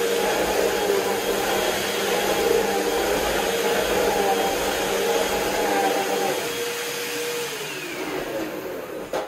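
Vacuum cleaner running with a steady drone and whine. Near the end it fades and its pitch falls away as the motor winds down, and a short knock comes just before the end.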